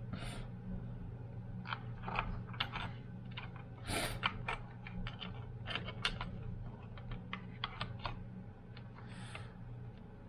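Irregular clicks, taps and light scrapes of small parts being handled and fitted into a jump starter's casing, over a steady low hum.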